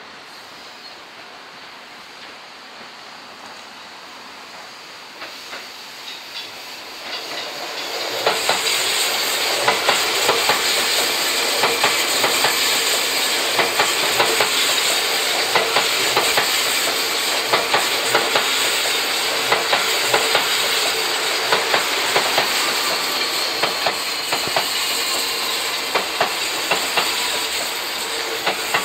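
Seibu 40000-series electric commuter train pulling away from a station stop and passing close by. The sound builds up over the first eight seconds or so into a steady run of wheels clacking over rail joints, with a faint rising motor whine.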